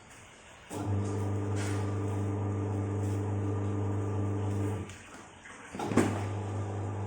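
A steady low hum, machine-like, that cuts out twice, for about a second each time, and starts again with a click about six seconds in.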